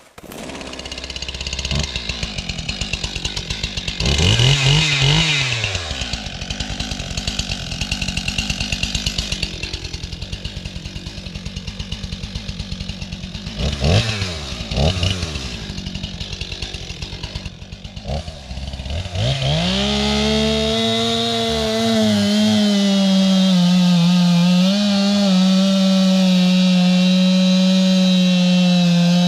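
STIHL MS 261 two-stroke chainsaw idling with a fast, pulsing rumble, blipped up to high revs twice and back down. About two-thirds of the way in it goes to full throttle and holds there steadily, with slight dips in pitch.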